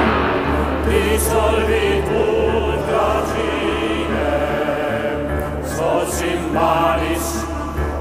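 Dramatic choral music: a choir singing held chords over a steady low drone.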